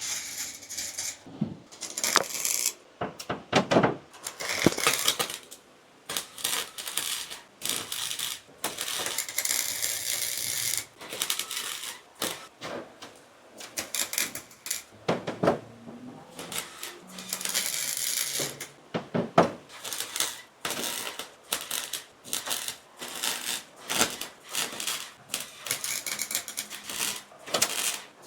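Welding arc crackling in short, irregular bursts, starting and stopping every second or two as fresh patch metal is tack- and stitch-welded into the car body's sheet metal.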